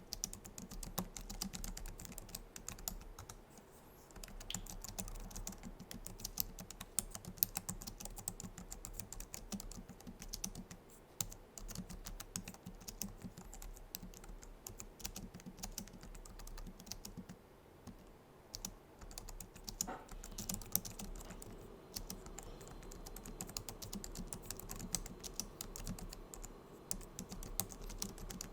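Continuous typing on a Logitech MX Keys keyboard: rapid, soft clicks of its low-profile scissor-switch keys, with a short lull about two-thirds of the way through.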